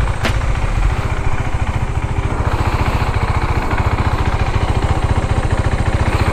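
2019 KTM Duke 390's single-cylinder engine running at steady, unchanging revs, its exhaust pulsing evenly.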